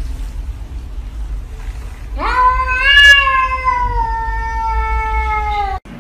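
A cat giving one long drawn-out meow, rising quickly at first and then slowly falling in pitch; it is cut off abruptly near the end.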